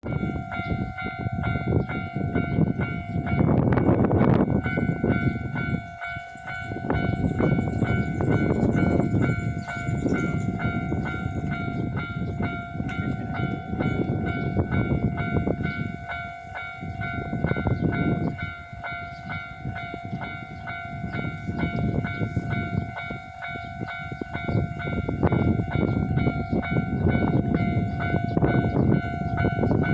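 Hankyu electric train running on its rails: a continuous rumble that swells and eases every few seconds, under a steady, unchanging whine.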